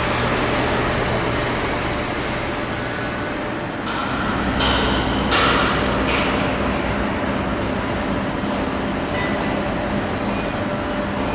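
Steady rumble of a passing vehicle, with a few short high screeches about four to six seconds in.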